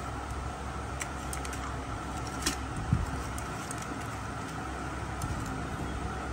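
Kitchen knife slicing raw chicken legs over a stainless steel bowl, with a couple of short clicks about two and a half and three seconds in, over a steady background hum.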